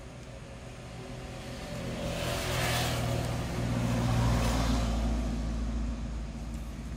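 A motor vehicle passing by: an engine rumble that swells, is loudest in the middle, then fades away.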